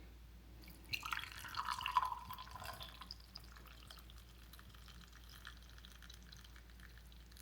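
Hot ginger and peppercorn tea poured from a pot through a strainer into a cup: a short splashing pour about a second in that lasts a couple of seconds, then faint drips as the strainer drains.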